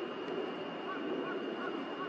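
Steady rushing outdoor background noise with a faint thin steady tone; from about a second in, faint short chirps repeat several times.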